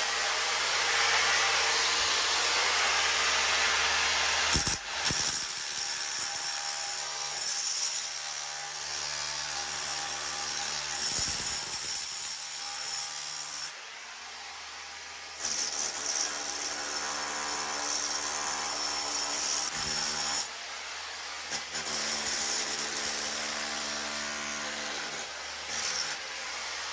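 Bauer 7.3-amp SDS-Plus rotary hammer with a chisel bit, running loud and steady as it hammers out the grout between bricks. It pauses briefly about halfway through and again a few seconds later.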